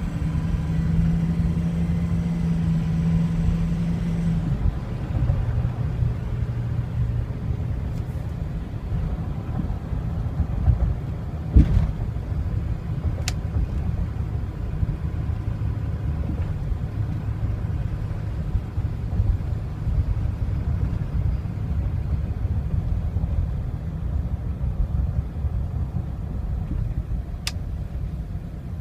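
6.0L Power Stroke V8 turbo-diesel running, its steady note dropping lower about four seconds in, in a truck whose owner reports a rough idle that stumbles and stalls once hot. A single thump just before the middle and a couple of faint sharp clicks.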